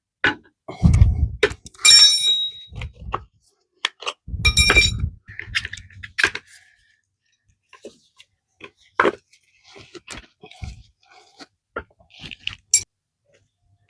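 Metal hand tools and scooter wheel parts clinking and knocking while a new solid tire is worked onto an electric scooter wheel. There are heavy thumps and two ringing metallic clanks, about two and five seconds in, then lighter scattered clicks.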